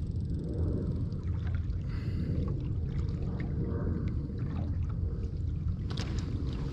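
Wind buffeting the microphone and water lapping against a small skiff's hull, a steady low rumble, with a few light clicks and knocks about six seconds in.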